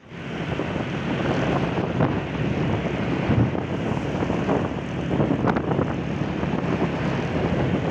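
Steady noise of road traffic and engines heard from a moving vehicle on a busy road, with wind on the microphone.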